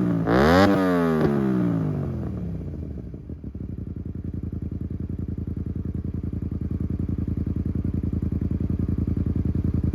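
Honda VTR250 V-twin running through a Danmoto conical GP silencer with its baffle fitted: a quick rev blip in the first second, the revs falling away over the next few seconds, then a steady pulsing idle with a very deep low note.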